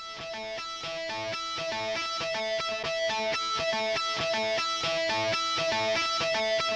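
Background music: a guitar picking a repeating riff of quick notes, growing louder as it fades in.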